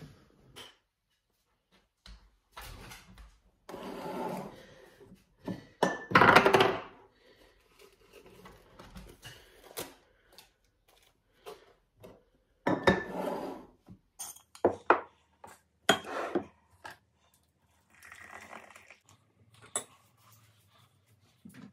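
Kitchen clatter of tea being made: a ceramic mug, a spoon and other items knocked and set down on a wooden worktop, with short rustles. The sounds come in scattered bursts, the longest and loudest about six seconds in.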